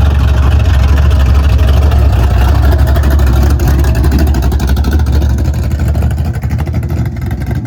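Car engine running steadily with a low drone, easing off slightly near the end.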